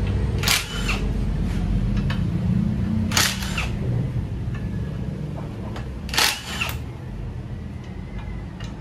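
Hand tools clinking against metal engine parts: three sharp, ringing clinks about three seconds apart, with lighter clicks between, over a steady low hum.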